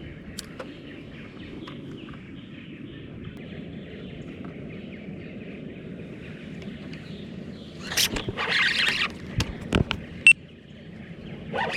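Steady outdoor background on the water from a fishing paddleboard. About eight seconds in comes a short rush of noise lasting about a second, followed by a few sharp clicks and knocks, the loudest about ten seconds in.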